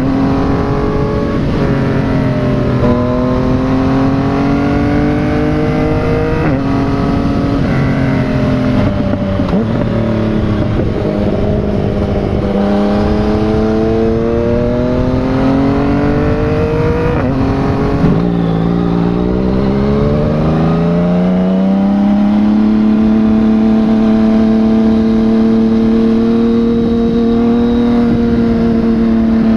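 Yamaha MT-09's three-cylinder engine running through a replica Akrapovic exhaust under way, its pitch climbing and dropping back at each gear change several times, then holding steady at a cruise from about two-thirds of the way in.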